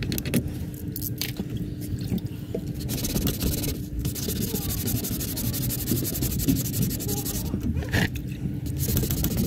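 Continuous rough scraping against a car's front bumper, with many small clicks and a steady low hum beneath it.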